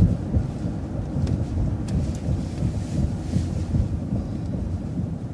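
Low, steady rumble of a city transit bus's engine and running gear heard from inside the bus, with a few faint ticks between one and two seconds in.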